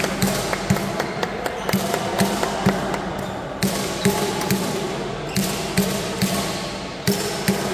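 Badminton racquets striking shuttlecocks: many sharp, irregular cracks, several a second, over a steady low hum.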